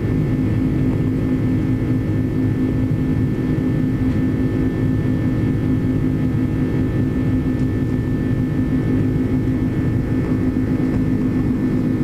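Cabin noise of a jet airliner climbing after take-off, heard beside its wing-mounted turbofan engine: a steady low drone with a constant hum in it.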